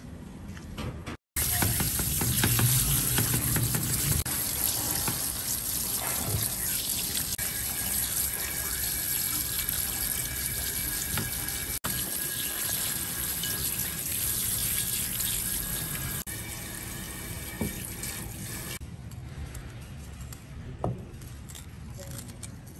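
Tap water running hard into a stainless steel colander as hands rinse and turn pieces of raw porcupinefish meat. The water stops about three-quarters of the way through, followed by a few snips of kitchen shears cutting fish skin.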